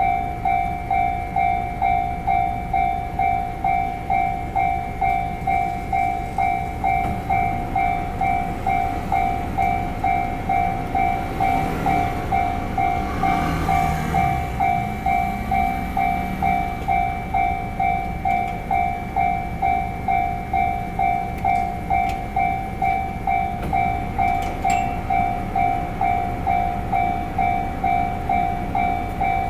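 Japanese railway level-crossing warning bell ringing in an even, unbroken ding-ding rhythm, signalling that the crossing is closed. About eleven seconds in, a train passes, its rumble rising and fading over roughly six seconds while the bell keeps on.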